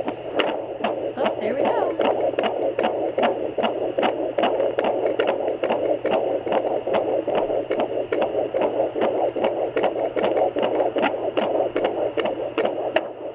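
Handheld fetal Doppler's speaker playing an unborn baby's heartbeat: fast, even whooshing beats, about two and a half a second (around 150 a minute), over a steady hiss.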